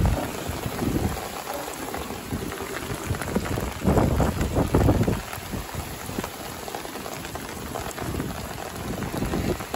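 Rain and wind noise on a sailboat at sea, a steady rushing hiss with gusts buffeting the microphone, loudest about four to five seconds in.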